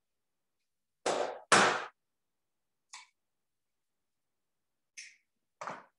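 An egg rapped twice against the rim of a mixing bowl to crack it, two sharp knocks about half a second apart, followed by a few faint clicks as the shell is handled.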